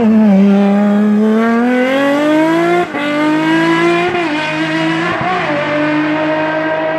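Sports prototype race car accelerating hard away out of a hairpin, its engine pitch climbing through the gears with a brief break for an upshift about three seconds in and further shifts after. It fades gradually as it pulls away up the hill.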